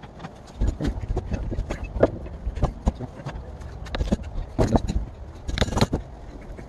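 A long screwdriver prying and scraping at the old seal-riding ring on a truck axle's pinion yoke: irregular metal clicks, scrapes and knocks, with a few louder clattering clusters in the second half.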